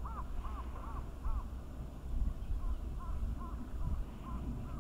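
A bird calling a quick run of short, clear, arched notes, about two or three a second, loud for the first second or so, then fainter and more scattered. A steady low rumble runs underneath.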